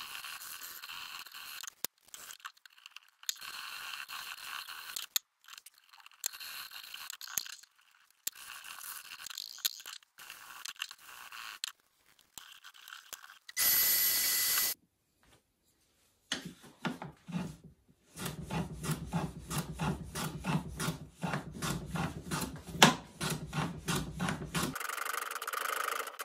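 Hand sanding walnut with sandpaper wrapped round a dowel: short bursts of scratchy strokes, later a steady run of quick, even back-and-forth strokes. A brief loud hiss comes about halfway through.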